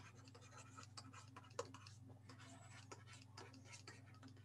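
Faint, irregular ticking and scratching of a stylus writing on a tablet screen, over a steady low hum.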